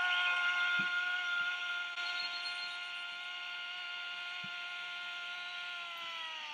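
A small electric motor running with a steady high-pitched whine, slowing and dropping in pitch near the end.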